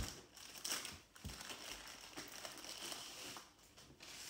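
Clear plastic packaging crinkling and rustling as a rolled canvas is unwrapped by hand, with sharp crackles near the start and a soft knock just over a second in.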